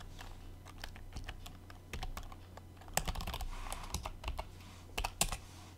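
Typing on a computer keyboard: irregular keystrokes, a few louder ones about three seconds in and near the end, over a low steady hum.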